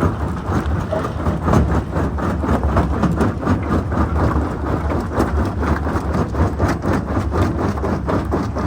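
Jonsson 1208 mobile jaw crusher running under load: a steady low diesel rumble with many irregular clacks of stone knocking and breaking as rock passes through the jaws.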